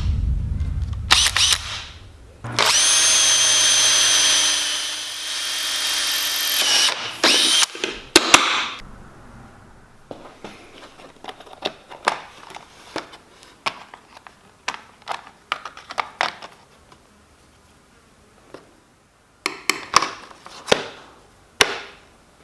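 A small electric power tool runs for about four seconds with a steady whine, with knocks just before and after it. It is followed by a long series of light taps and clicks from hand work on metal, and a few louder knocks near the end.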